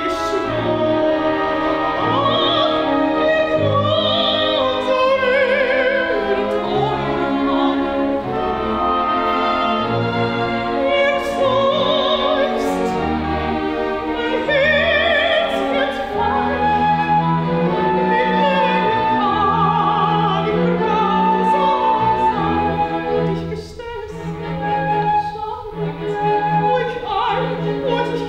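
An operatic soprano singing with wide vibrato over a symphony orchestra, with a brief softer passage about three-quarters of the way through.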